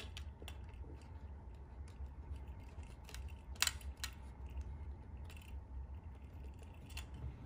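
Small clicks and light scraping of a TrueRC X-Air antenna's threaded connector wheel being screwed by hand onto the antenna port of DJI Goggles V2, with one sharper click about three and a half seconds in.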